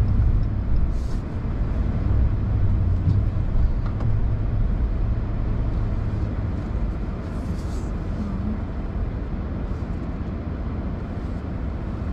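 Steady road and engine noise heard inside a moving car's cabin, mostly low in pitch.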